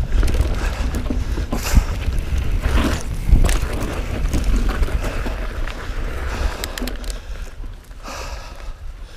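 Mountain bike riding fast over a dirt forest singletrack: wind rumbling on the microphone, and tyres rolling and rattling over the trail. Two sharp knocks from the bike come about two and three and a half seconds in, and the noise eases toward the end.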